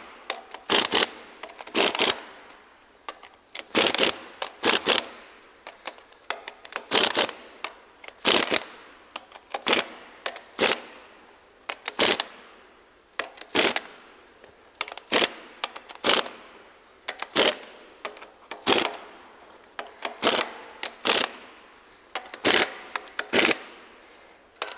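Impact gun turned down to about 75–80 ft-lb, hammering briefly on one cylinder head bolt after another of an International DT408 diesel: about eighteen short rattling bursts, one to two seconds apart, as each already run-down bolt is snugged in a circular pattern.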